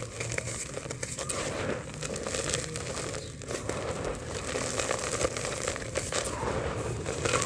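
Dry multani mitti (fuller's earth) clay chunks crushed and rubbed between the fingers, the grit and powder falling into a terracotta pot: a steady stream of many small crackles over a soft rustle.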